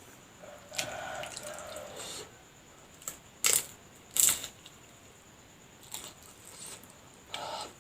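Close-up eating sounds: biting into and chewing a homemade fried spring roll (lumpia). Two sharp, loud crunches come about three and a half and four seconds in, with softer mouth sounds around them.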